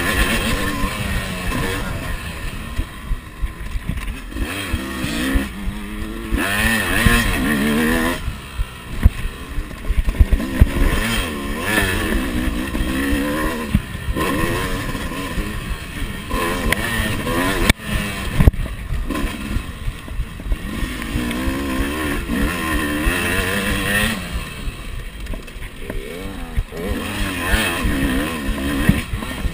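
Yamaha YZ two-stroke dirt bike engine heard from the bike itself, revving up and falling off again and again as it is ridden along a dirt trail. A second dirt bike runs just ahead.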